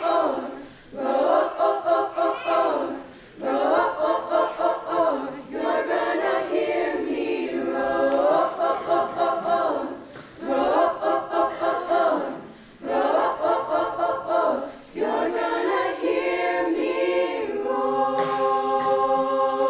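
Treble choir of women's voices singing a cappella, in phrases broken by short breaths, closing on a long held chord near the end.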